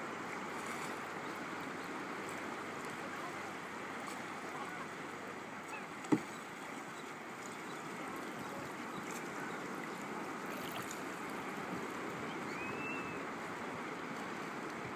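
Shallow water lapping and rippling over a sandy bottom, a steady wash. A single knock sounds about six seconds in, and a short high chirp near the end.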